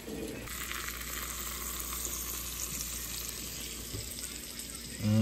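Bacon, squash and melted cheese still sizzling in a hot cast iron skillet just after the heat is turned off: a steady hiss that starts about half a second in.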